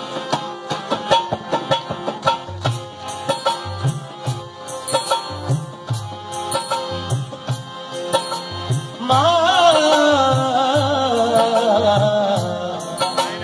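Harmonium and dholak playing a rhythmic instrumental passage of a live ghazal. About nine seconds in, a male voice comes in with a wordless, wavering held note that slowly falls in pitch.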